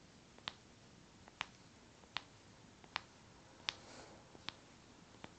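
Knuckle joints cracking: a series of seven sharp cracks, about one every 0.8 seconds, as the hands are squeezed and pushed.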